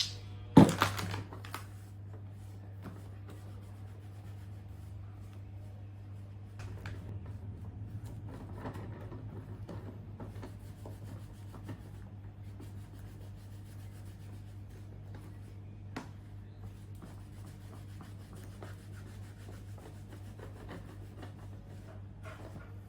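Rubbing on a leather wallet, in soft irregular strokes over a steady low hum. A sharp knock comes about half a second in.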